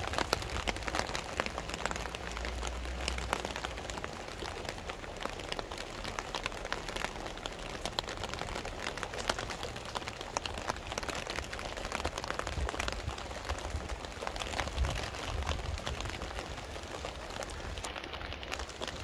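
Steady rain, a dense patter of drops hitting nearby surfaces, with a few low rumbles.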